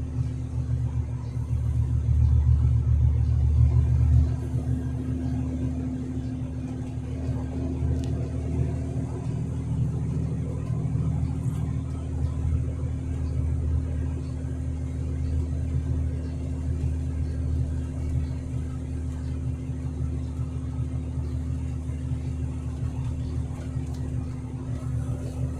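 Truck engine and road noise while driving on the highway: a steady low drone with a constant hum, louder for a couple of seconds near the start.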